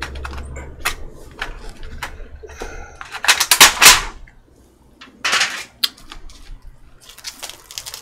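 Clicking and crinkling of a takeout container's clear plastic cover as it is pulled off an aluminium tray. There are two louder rustles about three and five seconds in.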